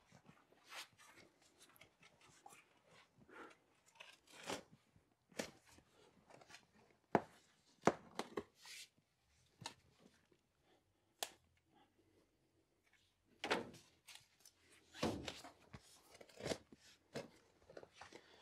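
Garden spade digging into mulch-covered soil in a raised bed: irregular crunches, scrapes and soft thuds as the blade cuts in and lifts, with short pauses between strokes.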